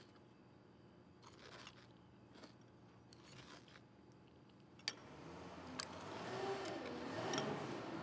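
Faint clinks of a spoon in a bowl and crunching of a mouthful of cereal, with a sharp click just before five seconds in. After that a low rumble swells up underneath and becomes the loudest sound.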